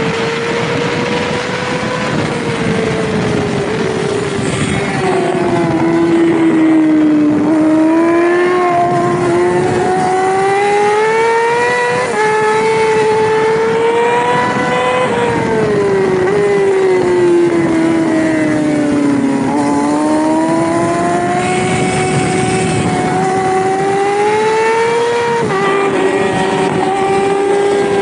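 Yamaha R6 600cc inline-four race engine at high revs, heard from the bike over wind rush. Its pitch falls twice as the rider rolls off into corners and climbs again under throttle, and it drops suddenly near the end at a gear change.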